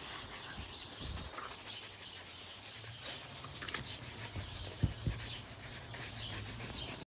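A brush scrubbing upholstery shampoo foam into the pleated upholstery of a Mercedes W124 seat: continuous rapid scratchy rubbing, with two short knocks about five seconds in.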